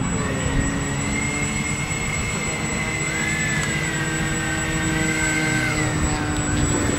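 Twin 80mm electric ducted fans of a Freewing A-10 Warthog RC model jet whining over a steady rushing hiss. The pitch dips and rises several times, and for a few seconds in the middle a second, lower whine runs alongside the first.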